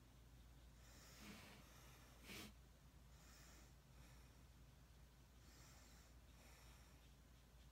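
Near silence: a steady low room hum with a few faint breaths through the nose, the sharpest a short sniff about two and a half seconds in.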